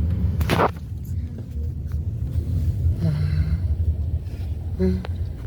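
Steady low road rumble inside a moving car. A brief, loud burst of noise comes about half a second in, and the rumble is quieter after it.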